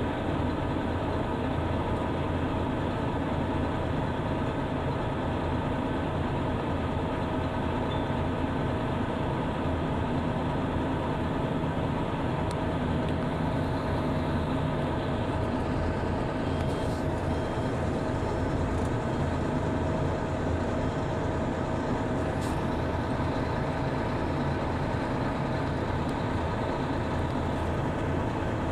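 Motor grader's diesel engine running steadily as the grader levels the ground.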